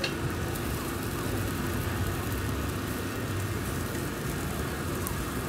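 Moo ping pork skewers sizzling on a street grill, a steady crackling hiss over a steady low rumble.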